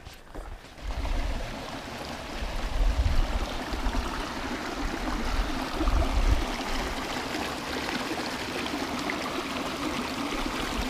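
Stream water flowing steadily, a continuous rushing that comes up about a second in.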